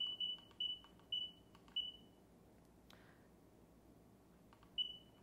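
NOSFET AERO electric unicycle's control panel beeping as its buttons are pressed: the tail of a fast run of short, high beeps, then three spaced beeps within the first two seconds, and one more beep near the end.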